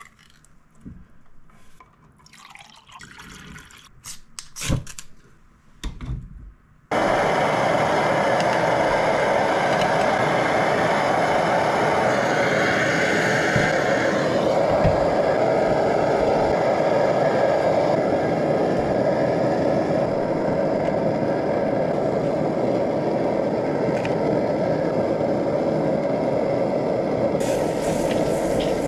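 Small clicks and scrapes as a soup can's ring-pull lid is opened and handled. Then, about seven seconds in, the loud, steady rush of a pressurized liquid-fuel backpacking stove burning under a griddle begins abruptly and goes on without change.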